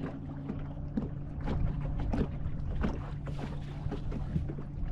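Boat motor running steadily at slow trolling speed, a constant low hum, with water lapping and splashing against the hull in irregular small slaps.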